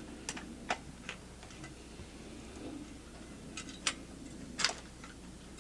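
About half a dozen short sharp clicks and light taps at irregular intervals, the loudest near the end, from a Hardie Hanger siding bracket being handled and taken off the wall.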